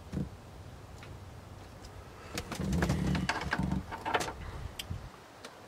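Wires and plastic connectors of a car stereo harness clicking and rustling as they are handled. A low, pulsing hum lasting just over a second comes in about halfway through and is the loudest sound.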